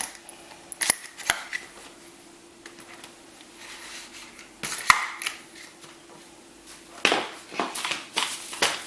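Pushchair wheel being pressed onto its axle: a few sharp plastic-and-metal clicks and knocks, then a run of rattling and scraping near the end.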